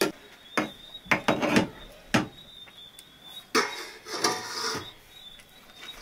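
Kitchenware being handled: a run of sharp knocks and clinks, then a longer rattling clatter from about three and a half seconds in.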